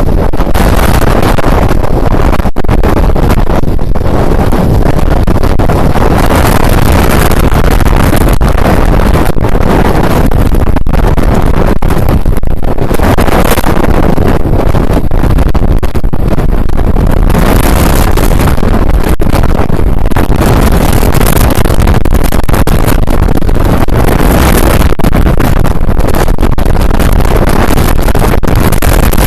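Typhoon wind buffeting the microphone: loud, continuous rumbling noise with no let-up, close to overloading the recording.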